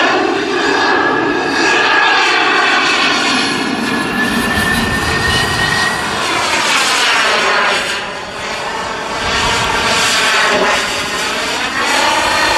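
Radio-controlled model jet flying past, its engine a loud continuous whine that rises and falls in pitch and tone as it passes. It drops off briefly about eight seconds in and again about three seconds later.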